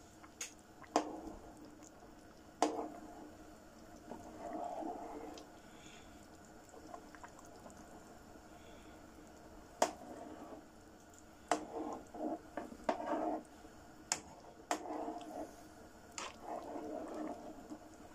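A metal spoon stirring a thick simmering stew in a large pan: wet squelching of the sauce with a dozen or so sharp clinks of the spoon against the pan.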